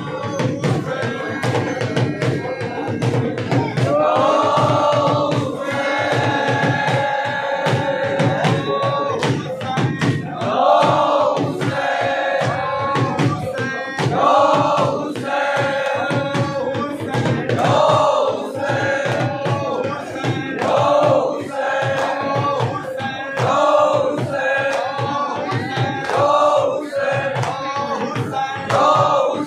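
Crowd of men chanting a mourning refrain in unison, the chant swelling every few seconds, over continuous rhythmic slaps of hands on bare chests (matam).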